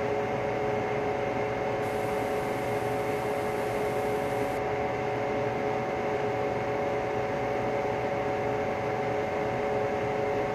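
A steady droning hum of several held tones over a constant hiss of static: an analog-horror ambient sound bed.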